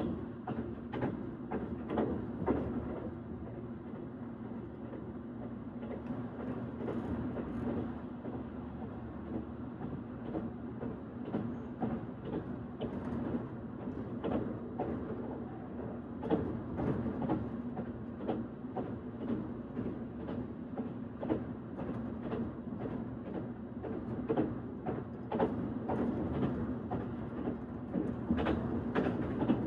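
Train running along the track: a steady rumble with a low hum, broken by frequent irregular knocks and rattles.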